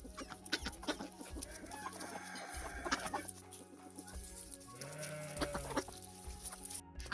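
Chickens clucking and calling, with scattered clicks and knocks.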